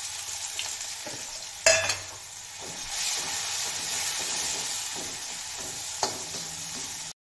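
Chopped onion sizzling in hot oil in a brass kadai as it is stirred with a slotted spatula. There is a sharp metal clank against the pan about two seconds in and a lighter one near the end.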